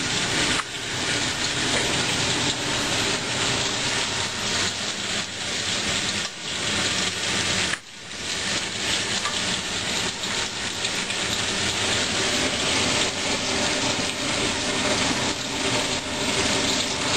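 Steady sizzling hiss of sliced vegetables frying in oil in a wok, briefly dropping away about eight seconds in.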